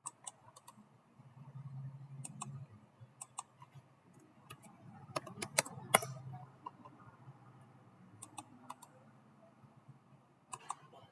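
Scattered computer keyboard and mouse clicks, irregular and spaced out, over a faint low background hum.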